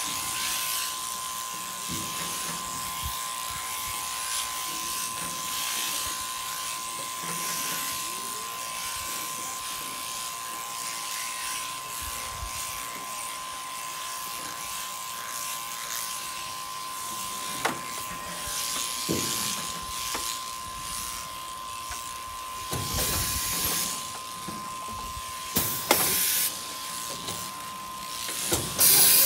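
Sheep-shearing handpiece running with a steady buzzing hum while it cuts the wool off a ram. A few sharp clicks and louder knocks and clatter come in the second half.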